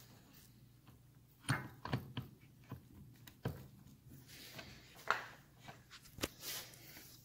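Scattered light metal clicks and knocks, about seven spread over several seconds, as the clutch assembly and primary chain of a Triumph 650 are worked by hand onto the splined mainshaft. A low steady hum sits underneath.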